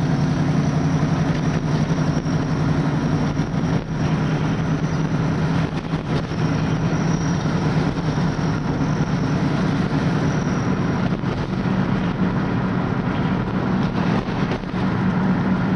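A vehicle engine and road noise heard from inside the cab while driving: a steady low hum over a broad rush of noise, shifting slightly in pitch about two-thirds of the way through.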